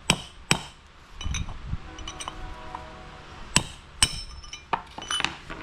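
Hammer blows on a brass punch driving an old bearing race out of a 1959 Ford F-100 front wheel hub: about six sharp metallic strikes with a short ring, spaced unevenly, some in quick pairs.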